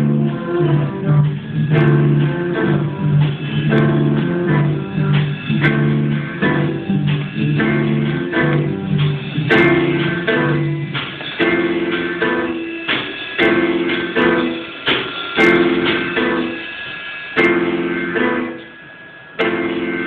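Live band playing amplified music, with guitars and keyboard to the fore. Near the end it drops away, then one last short chord comes, like the close of a song.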